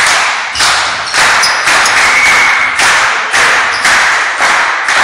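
A steady beat of sharp hits, about two a second, each echoing and fading in the gymnasium.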